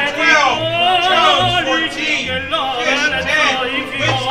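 Music with an operatic-style singing voice with heavy vibrato over a regular low bass line.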